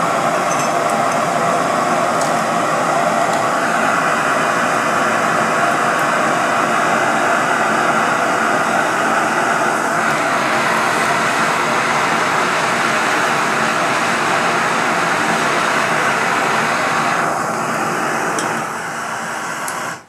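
Two handheld gas torches firing into a small crucible furnace, with a steady loud hiss of burning gas. The hiss thins a little about three seconds before the end, drops about a second and a half before the end, and then cuts off suddenly.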